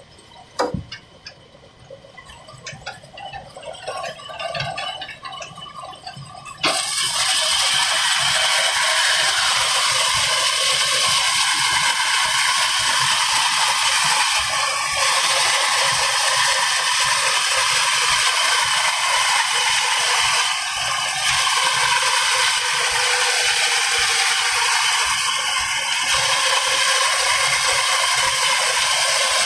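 Large belt-driven sawmill saw cutting lengthwise through a wooden plank: scattered clacks and knocks at first, then about seven seconds in the blade bites into the wood. A loud, steady, hissing rasp of sawing follows and carries on.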